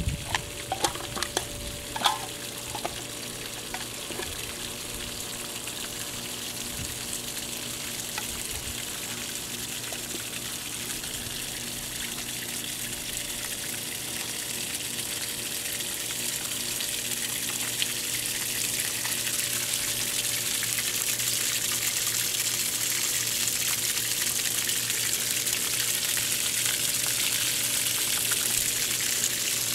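Water from a garden hose gushing out of a Bravo I sterndrive around its stainless four-blade propeller and splashing onto grass, a steady hiss that slowly grows louder. A few knocks in the first couple of seconds.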